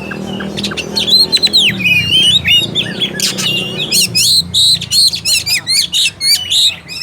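Oriental magpie-robin (kacer) singing: a fast, dense run of varied whistled notes, sweeps and harsh chattering calls. A low hum sits underneath, fading after about four seconds.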